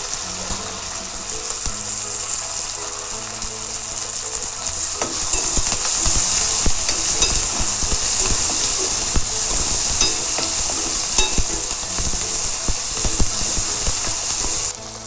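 Shallots, dried red chillies and curry leaves sizzling in hot oil in a pan, with a spatula stirring and scraping against the pan in quick clicks. The sizzle grows louder about five seconds in and drops off suddenly near the end.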